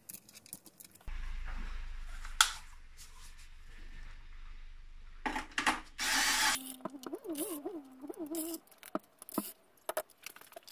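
Cordless power driver running for about five seconds, backing out the valve-cover bolts, with clicks and knocks of the tool and the loosened bolts around it.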